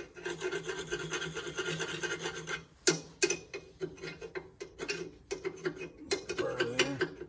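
Steel chisel scraping rust scale off a rusted exhaust pipe stub on a Briggs & Stratton 16 HP engine, clearing it so a new muffler will slip on. It rasps in quick continuous strokes at first, gives a sharp knock about three seconds in, then goes on in shorter scrapes.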